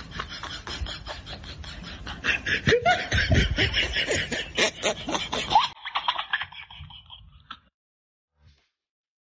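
A group of people laughing and calling out, getting loud about two seconds in, then trailing off and stopping a few seconds before the end.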